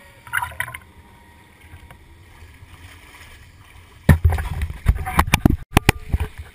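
Water splashing and lapping around a handheld waterproof GoPro as a swimmer reaches the pier wall, with one quick splash shortly after the start. From about four seconds in, a rapid run of loud knocks, bumps and splashes as he climbs out of the water, the camera housing knocking against his hand and body.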